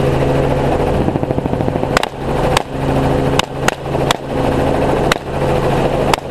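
Helicopter running steadily with a constant engine and rotor hum. From about two seconds in, about seven rifle shots fire at irregular intervals over it.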